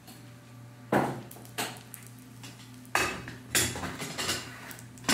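Metal kitchenware and utensils clattering: about half a dozen sharp knocks and scrapes of pots and utensils being handled and set down.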